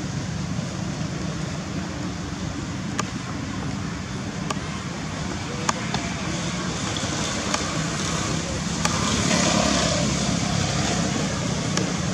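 Steady outdoor background noise: a low rumble and hiss of the kind distant road traffic makes, with a few faint sharp clicks scattered through it and a slight swell near the end.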